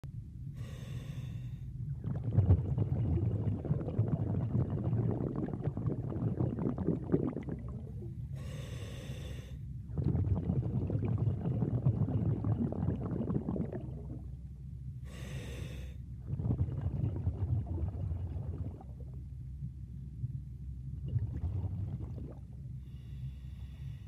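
A diver breathing, heard underwater. A short hissing inhale comes about every seven seconds, four in all, and each is followed by several seconds of low rumbling exhale.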